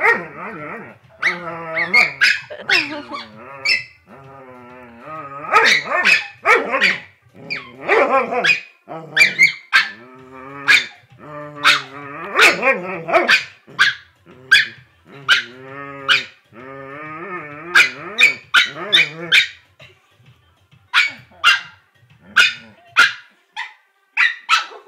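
Dogs barking and howling in play: sharp barks mixed with long wavering, whining howls, with a short lull near the end.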